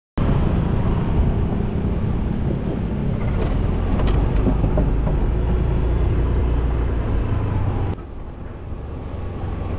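On-board sound of a motor scooter riding along a street: engine running under a heavy low rumble of wind and road noise. It starts abruptly just after the opening silence, and the level drops suddenly about eight seconds in, then carries on quieter.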